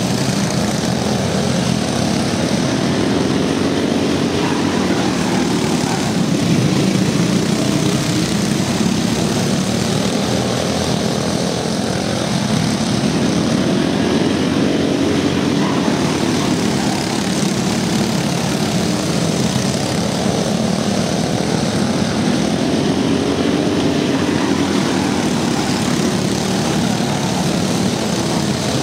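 A pack of racing go-karts with Briggs & Stratton Raptor single-cylinder engines running at full throttle around a dirt oval, a continuous engine drone that swells and fades about every ten seconds as the pack laps the track.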